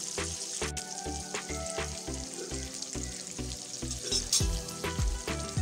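Flour-coated chicken drumsticks deep-frying in hot oil in a kadhai, a steady sizzle, as a spatula turns them over during their first, partial fry. Background music with a steady beat runs underneath.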